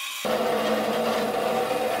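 Metal-cutting band saw running, its blade cutting through a steel plate. About a quarter second in, a steady hum comes in suddenly under the higher hiss of the cut.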